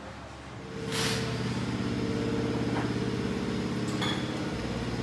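A machine starts up about a second in with a short burst of hiss, then runs steadily with a low, evenly pulsing hum. A few light metallic clinks come near the end.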